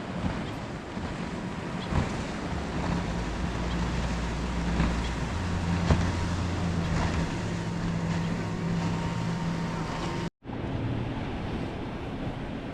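Wind on the microphone and surf at the shore, with a steady low motor hum through the middle. The sound cuts out completely for a split second near the end.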